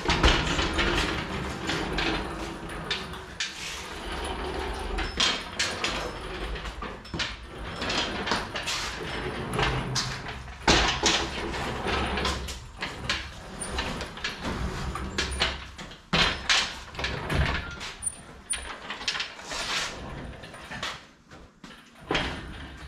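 Steel engine hoist carrying a wooden lifting beam being rolled and worked into a truck cab's door opening: rolling rumble with creaks and many irregular knocks and clanks of metal and wood.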